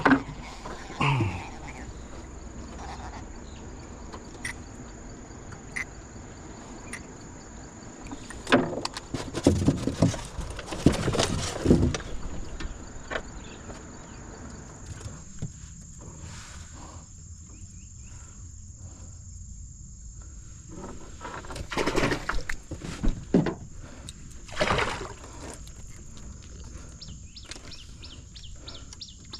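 Insects, likely crickets, keep up a steady high-pitched trill, broken twice by a few seconds of rustling and clattering, once around a third of the way in and again about three-quarters through.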